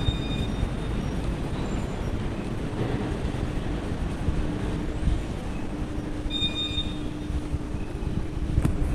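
Steady low rumbling background noise, with a faint hum from about three seconds in and short high beeps at the start and again about six seconds in.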